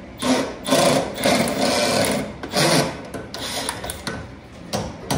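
Cordless power tool whirring in several bursts on a bolt at the rear leaf spring mount of a Jeep Cherokee XJ, backing it out so the spring can come out. The first three bursts are long and loud, the later ones short and fainter.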